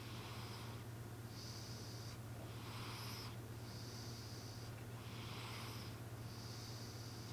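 Domestic cat snoring in a human-like way, in steady rhythmic breaths. Each breath is a high whistling wheeze followed by a noisy snort, about one breath every two and a half seconds, over a steady low hum.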